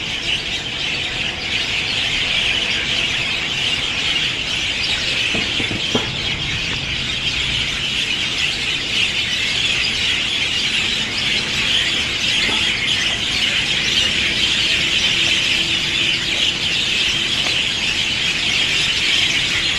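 A dense, unbroken chorus of many birds calling and chattering together in the trees, loud and steady throughout.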